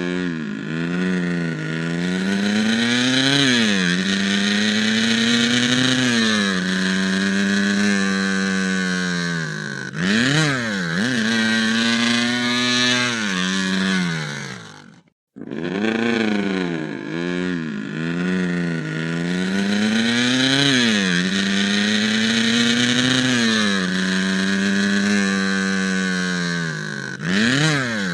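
Cartoon sound effect of an old race car engine running hard, its pitch repeatedly climbing and then dropping back sharply. The sound cuts out briefly about halfway, and the same sequence then plays again.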